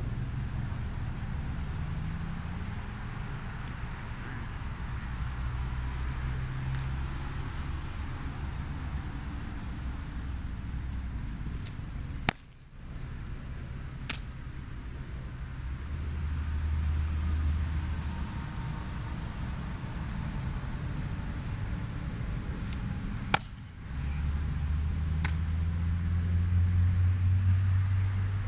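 Steady high-pitched insect chorus, with a low rumble that swells and fades. Two sharp smacks stand out, about twelve and twenty-three seconds in.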